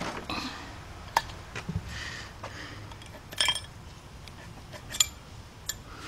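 Scattered sharp metallic clinks and knocks as a removed engine cylinder head is turned over and handled on a plastic crate, with a small cluster of them about halfway through.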